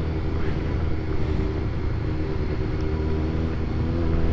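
Honda CBR1100XX Blackbird's inline-four engine running at a steady cruise, heard through the helmet microphone with wind and road noise.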